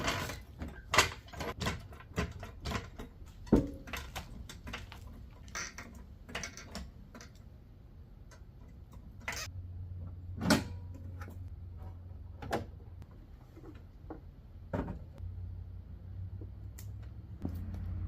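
Irregular clicks and knocks of tools and equipment being handled, with a low steady hum coming in about halfway through.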